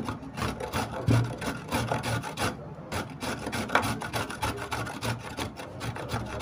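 A raw carrot grated on a metal box grater with quick, rhythmic rasping strokes, about two to three a second, each with a light knock of the grater on the wooden board.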